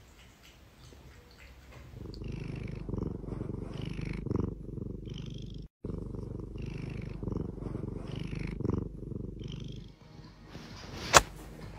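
Oriental Shorthair cat purring close to the microphone, a steady low rumble that swells with each breath about every second and a half. One sharp click near the end.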